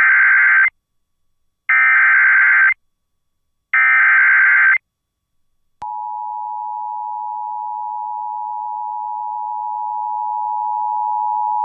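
Emergency Alert System SAME header: three one-second bursts of digital data tones about a second apart, encoding the severe thunderstorm warning. A little under six seconds in, the steady two-tone EAS attention signal begins and holds, growing slightly louder, announcing the warning message to follow.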